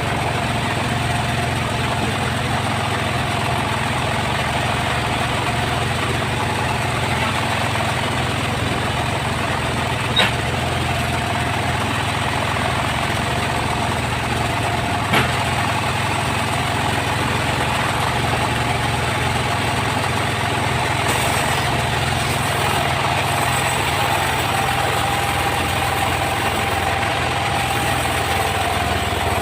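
Sawmill machinery running steadily with a constant mechanical hum, with two short sharp clicks about ten and fifteen seconds in.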